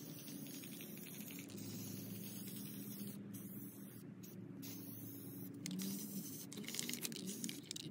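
Aerosol can of Rust-Oleum Gloss Protective Enamel spray paint hissing as it sprays, with a few short breaks where the nozzle is let go.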